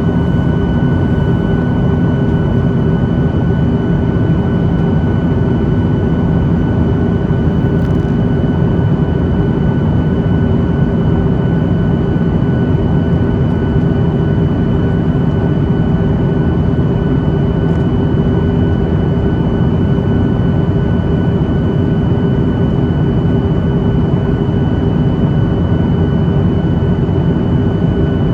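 Jet airliner running with a steady, unchanging rumble, plus a few steady whining tones on top.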